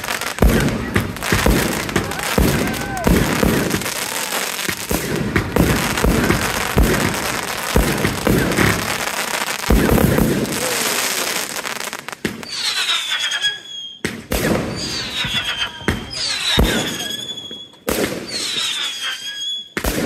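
Fireworks display: a dense stretch of bangs and crackling. From about twelve seconds in, this gives way to a series of shots, each followed by a falling whistle, repeating every one and a half to two seconds.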